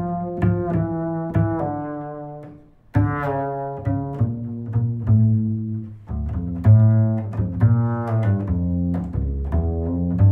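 Instrumental background music carried by deep, string-like notes in a steady melodic run. It fades almost to nothing about three seconds in and comes straight back.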